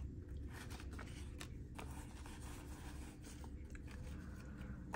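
Paper banknotes being handled and shuffled: soft rustling and a few faint paper flicks over a steady low background hum.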